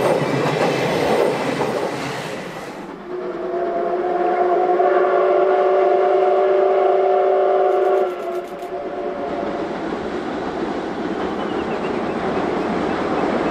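Passenger coaches rolling past close by with wheels clattering on the rails. Then the C57 180 steam locomotive's whistle sounds one long blast of about five seconds. The steady running noise of the working train follows.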